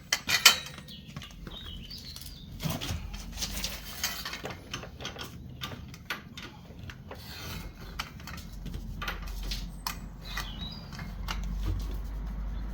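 Irregular metal clanks, knocks and scrapes as a rusted, stuck part on a car's front spindle is levered with a rake handle; two sharp knocks come right at the start.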